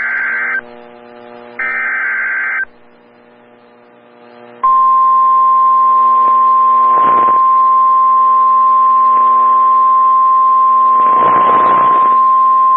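Emergency alert header: the end of one burst and then a full burst of the SAME digital data tones, each a harsh screech about a second long. Then, about five seconds in, the steady single-pitch 1050 Hz NOAA Weather Radio warning alarm tone, announcing a new warning, with a steady hum and two short bursts of static behind it.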